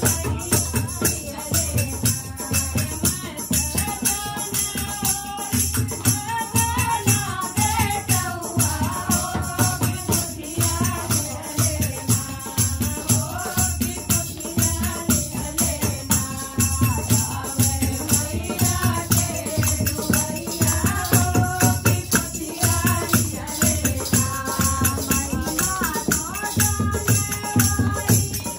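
Devotional song sung by a group, with jingling percussion and a drum keeping a steady beat.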